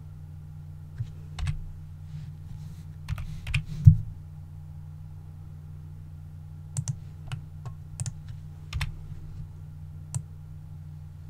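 Computer keyboard keys and mouse clicks, irregular taps in small clusters, over a steady low hum.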